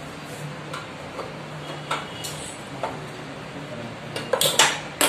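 Scattered sharp clicks and light metallic clinks at a small single-burner steel gas stove as it is readied to heat a shoe, with a quick cluster of louder clicks near the end, over a faint low steady hum.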